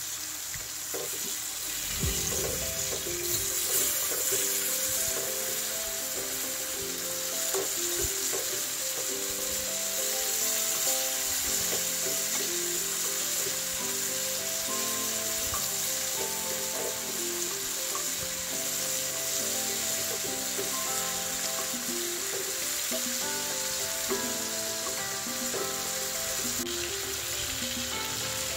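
Chicken breast pieces sizzling steadily as they fry in butter and olive oil, with occasional knocks and scrapes of a wooden spoon turning them in the pan. Soft background music with a melody of short notes plays underneath.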